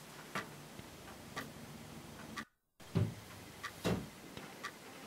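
A clock ticking steadily about once a second. Two dull knocks come about three seconds in and again a second later.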